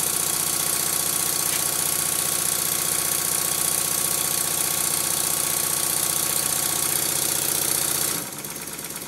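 Stuart Double 10V twin-cylinder vertical model steam engine running fast on compressed air: a steady, rapid clatter of exhaust beats and moving parts, its knocks amplified by the workbench it stands on. About eight seconds in it drops to a quieter level.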